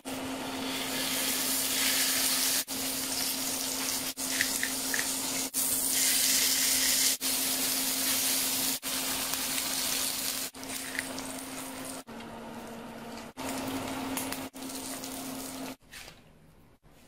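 Pork belly sizzling in its own fat on a hot griddle plate, loudest through the middle, broken by short gaps where clips are cut together, over a steady hum; it quietens near the end.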